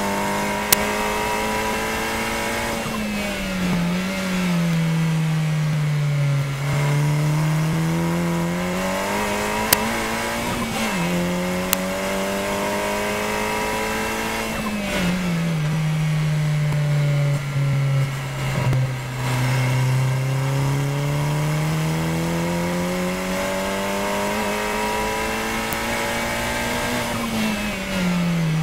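KTM X-Bow Elite race car's turbocharged four-cylinder engine, heard from the cockpit at racing speed. The note climbs slowly under throttle for several seconds, then drops sharply as the car slows for corners, three times over, with a few sharp clicks.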